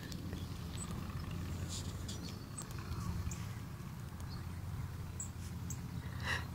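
Steady low rumble on a phone microphone, with a few faint, very high, short bird chirps and light rustling clicks.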